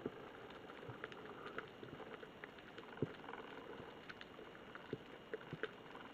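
Faint underwater ambience: a low hiss with scattered sharp clicks and crackles at irregular moments, the loudest about three seconds in.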